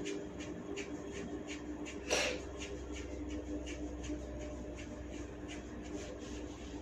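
A single sharp crack of a neck joint about two seconds in, over faint, even rubbing strokes of hands massaging skin, about three a second.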